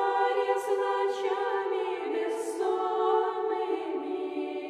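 Background music: a choir singing a cappella, holding long chords that shift every second or so.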